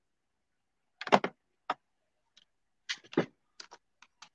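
Scattered computer keyboard and mouse clicks while a participant is added to a video call. Two heavier knocks come about one and three seconds in, with lighter clicks between and near the end.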